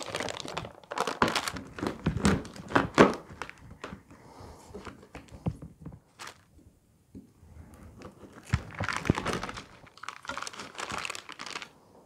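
Parchment paper crinkling and rustling as it is peeled off a frozen slab of homemade suet cake, in bouts with a quieter lull in the middle.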